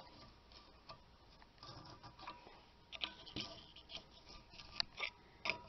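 Faint, scattered clicks and light taps from brake parts and tools being handled at the rear wheel, with a few sharper ticks in the second half.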